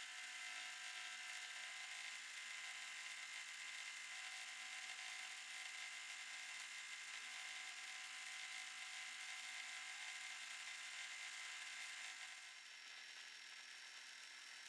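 Domestic sewing machine running steadily at speed while free-motion stitching: a faint, even motor whir. It gets a little quieter about twelve and a half seconds in.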